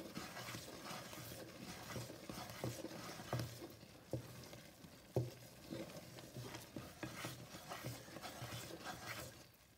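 Wooden spatula stirring and scraping a thick besan barfi mixture of roasted gram flour and sugar syrup in a metal pot, with soft, irregular taps against the pot. The heat is already off.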